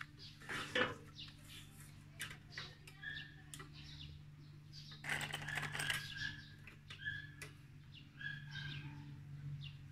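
Light clicks and knocks of small objects being handled at a wooden workpiece, with short, repeated bird chirps and a steady low hum behind them.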